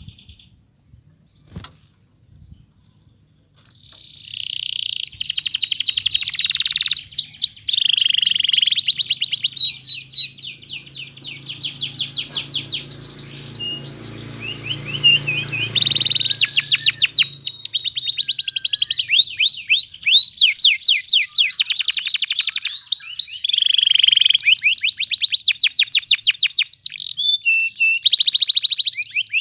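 Domestic canary singing a long, loud song of very fast trills and rolls of repeated notes, starting about four seconds in after a short pause.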